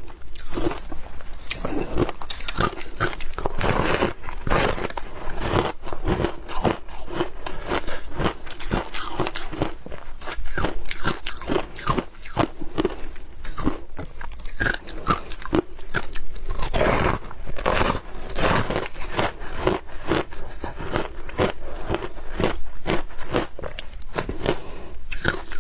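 A person biting and chewing a chunk of frozen shaved ice: a dense, irregular run of crisp crunches, close to the microphone.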